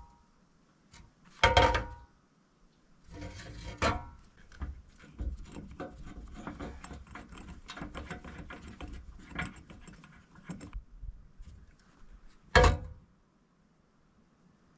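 A portable sawmill's metal frame being shoved and dragged across a wooden platform: a long stretch of scraping and rattling, with a few heavy knocks at the start and near the end.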